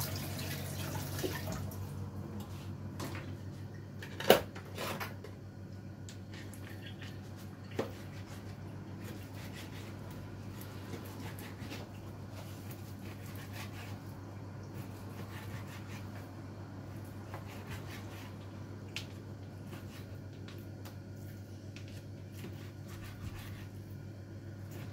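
Kitchen handling sounds: a few sharp knocks and clinks of dishes, the loudest about four seconds in, over a steady low hum. Running water fades out in the first couple of seconds.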